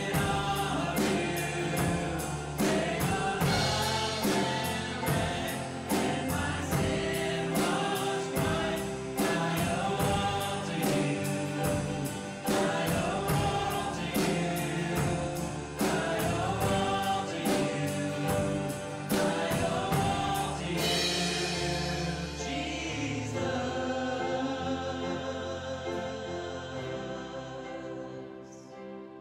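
Small live worship band with singers, acoustic guitar and drums playing a gospel song. About two-thirds of the way through the beat stops, and the final chord rings out and fades away as the song ends.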